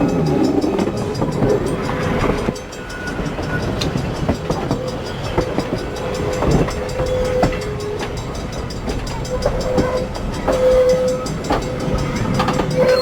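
A train moving along the track, with irregular clicks and clanks from the rails and cars and short steady squeals now and then.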